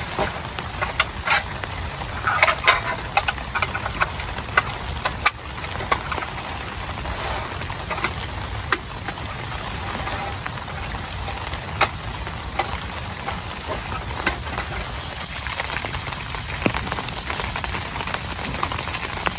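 Steady rain, with frequent irregular sharp taps and ticks of drops striking close by.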